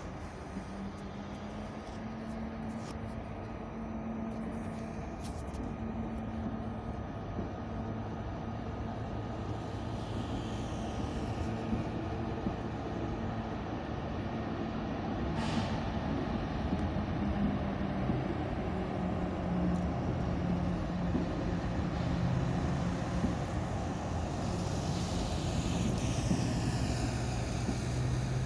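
OUIGO double-deck TGV close by: a steady low electrical hum from its traction and auxiliary equipment that grows slowly louder, with faint high whining tones now and then. A short sharp hiss of air about halfway through.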